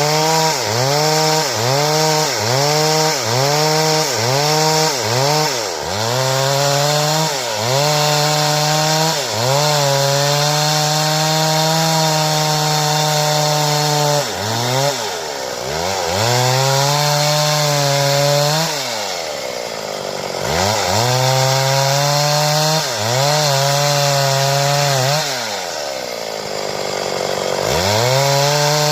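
Stihl two-stroke chainsaw cutting wood at high revs. At first the engine pitch sags and recovers about one and a half times a second. It then holds steady in longer stretches, and twice drops right down and climbs back up as the throttle eases off and opens again.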